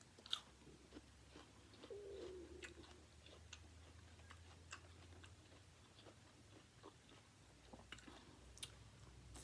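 Faint chewing and biting while eating, with scattered small mouth clicks and crunches.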